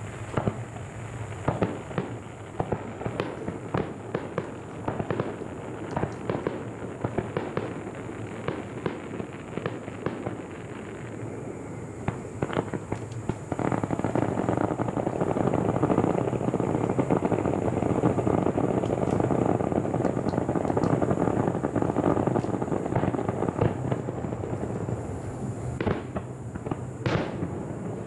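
Fireworks display: a rapid string of bangs and pops, then from about halfway a louder, dense crackling that keeps going, with a couple of sharp bangs near the end.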